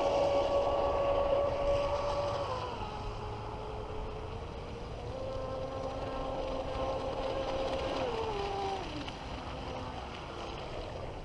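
Traxxas M41 Widebody RC boat's brushless electric motor whining at speed. Its pitch drops about two and a half seconds in, climbs back around five seconds, and steps down again near the end as the motor slows.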